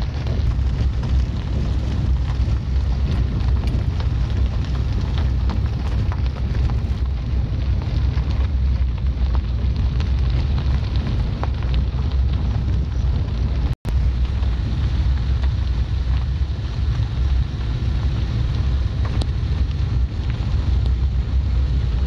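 Wind buffeting the microphone: a loud, steady low rumble with hiss, cut off for an instant about fourteen seconds in.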